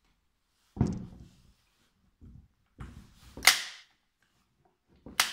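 Sharp clacks and knocks of hard plastic and metal parts as an electric chainsaw is handled and reassembled on a wooden table. There are three loud knocks, about a second in, midway and near the end, the middle one loudest, with a few softer taps between. The saw's motor is not running.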